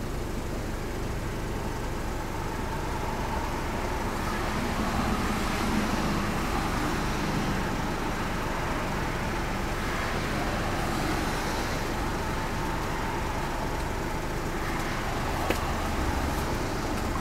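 Car driving along, with steady engine and road noise that swells slightly a few times.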